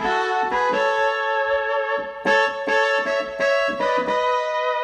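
Electronic keyboard on a trumpet voice playing a trumpet ornament: a quick run of brassy notes and chords, settling into a held chord about four seconds in.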